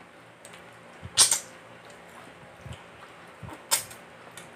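Close-up mouth noises of a person eating boiled catfish by hand: two short, loud slurps, about a second in and again near the end, with faint lip smacks between.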